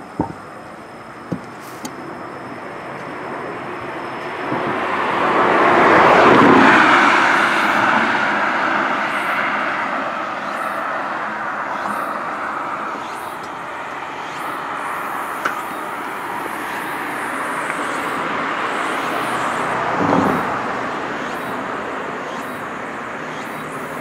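Road traffic: a vehicle passes close by, swelling to a peak about six seconds in and fading into steady traffic noise. A second, quieter vehicle passes about twenty seconds in. A few sharp clicks come at the very start.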